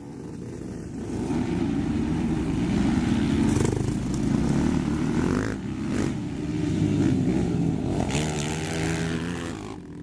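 Racing ATV engines revving on a motocross track, the engine note rising and falling with the throttle, growing louder over the first second or two.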